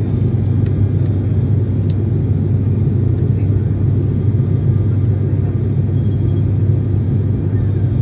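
Steady cabin drone of an ATR 72-600 turboprop airliner in cruise: an even, deep rumble of the engines and propellers heard from inside the cabin.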